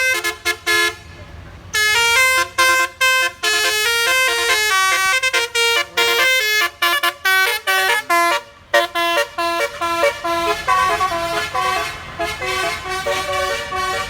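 Bus 'basuri' telolet air horn playing a fast tune of short pitched notes, breaking off for a moment about a second in and then running on, the notes crowding together near the end.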